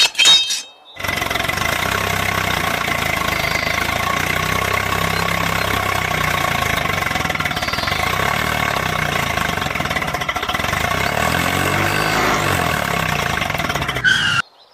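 A couple of metallic clinks as the trailer's wire hook is attached, then a tractor-type engine sound running steadily. It starts abruptly about a second in and cuts off abruptly just before the end.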